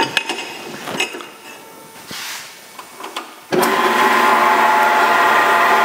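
A few light clicks and knocks as a stainless exhaust tube is set in the saw. About three and a half seconds in, a horizontal metal-cutting bandsaw starts suddenly and runs steadily with a strong hum, cutting the tube bend.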